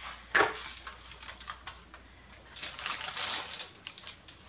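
Aluminium foil crinkling and rustling as it is pulled off a baking dish, in two spells of crackling with a short lull between them.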